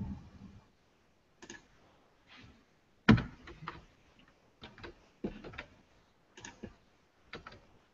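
Computer keyboard keystrokes: a dozen or so irregular clicks and taps, the loudest about three seconds in.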